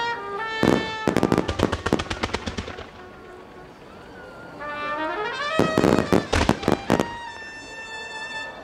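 Starmine fireworks: two rapid volleys of sharp shell bursts, close up. The first runs from about a second in for some two seconds, the second comes around six seconds in. Under them is music, with notes that glide upward and then hold.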